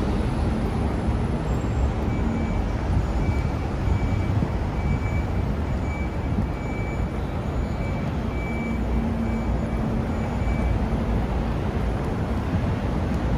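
Steady city road-traffic noise, a dense low rumble of passing vehicles. Faint short high beeps repeat about twice a second through most of it.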